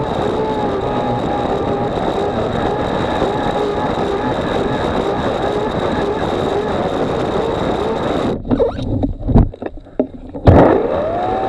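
Battery-powered EGO multi-tool power head driving a pole saw chain through wood: a steady electric motor whine whose pitch wavers as the chain loads. About eight seconds in it cuts off, a few low thumps follow, and the motor spins back up with a rising whine near the end.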